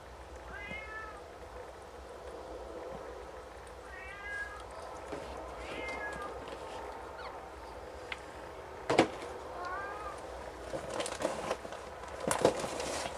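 Newborn Snowshoe Siamese kittens giving short, high squeaking mews, about four of them, each rising then falling in pitch. In the second half the mother cat shifts in the plastic birthing tub, making sharp knocks and rustling in the bedding.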